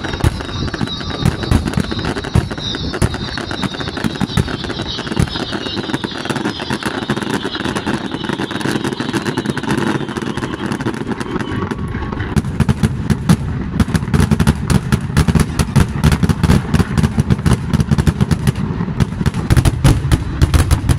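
Fireworks closing barrage: continuous rapid crackling and popping of aerial shells and ground fountains, with a high hiss that falls in pitch over the first half. From about twelve seconds in it thickens into a denser run of loud bangs and booms.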